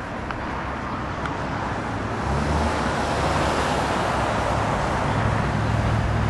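Road traffic: a motor vehicle's engine hum and tyre noise, getting louder about two seconds in and staying loud.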